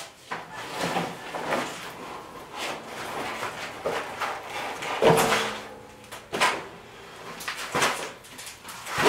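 Stainless steel work table with chrome legs being handled and turned upright: a run of metal clanks and rattles from the frame and shelf, with the loudest clank about five seconds in, ringing briefly, and another strong one at about six and a half seconds.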